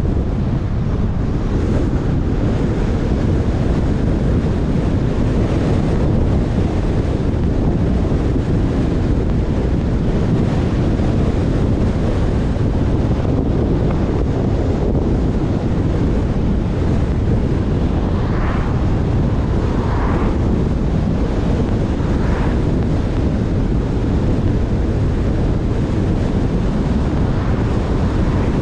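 A car driving steadily, its road and tyre noise mixed with steady wind buffeting the microphone. About two-thirds of the way in come three short, faint, higher sounds.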